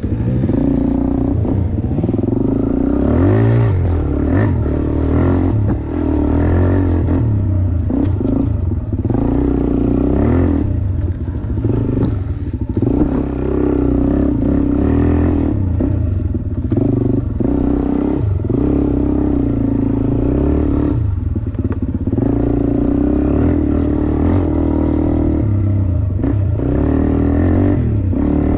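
Suzuki DR-Z400 single-cylinder four-stroke dirt bike engine running under riding load, its revs rising and falling over and over as the throttle is opened and closed.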